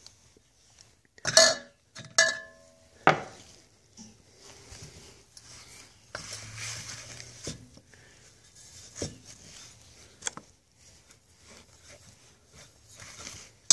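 Light metallic clinks and knocks from a Ford 3000 tractor's steel power-steering reservoir housing being handled and turned over on a workbench, one clink ringing briefly; soft rubbing and handling noise between the knocks.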